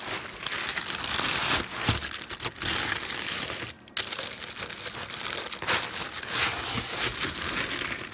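Honeycomb kraft-paper packing wrap crinkling and rustling as it is pulled apart and unwrapped by hand inside a cardboard shipping box, with a brief pause about four seconds in.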